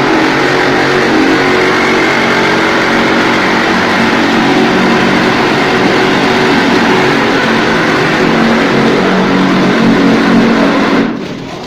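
Automatic wall-plastering machine running steadily, its motor hum cutting off suddenly near the end.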